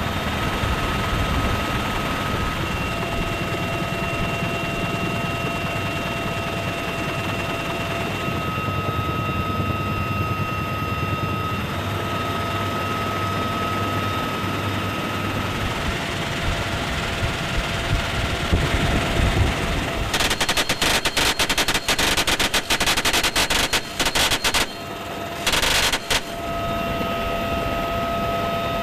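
Helicopter running steadily with a whine over the rotor and turbine noise. About twenty seconds in, a door-mounted machine gun fires a rapid run of bursts for about five seconds, then one more short burst, before the steady helicopter noise returns.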